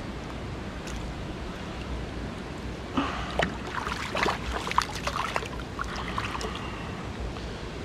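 Small mountain stream flowing steadily, with a flurry of short irregular splashes from about three to six and a half seconds in.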